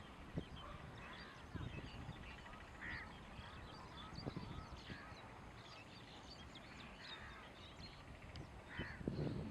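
Faint calls of a mixed flock of ducks on the water: scattered duck calls among many short, high chirps, with a few low bumps, the strongest near the end.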